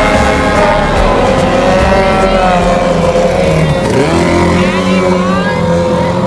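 Several racing boat engines running hard together at different pitches. About four seconds in, one engine's pitch dips and climbs again.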